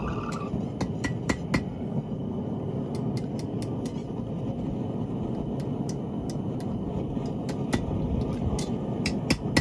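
Scattered light hammer taps and metal clinks as a hot rod ring is shaped on an anvil, a few strikes near the start and again near the end, over a steady rushing background noise.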